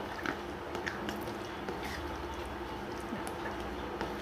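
A spoon stirring a thick pumpkin and cowpea curry in a pan, with scattered light clicks and scrapes of the spoon against the pan over a steady background hiss.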